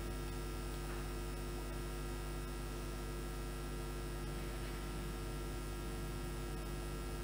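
Steady electrical mains hum with a faint hiss beneath it, picked up by the recording setup.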